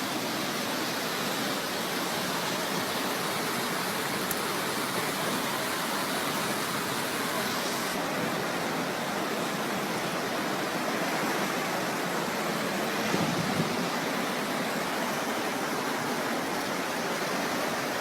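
Flash floodwater rushing steadily, a continuous roar of fast-moving water.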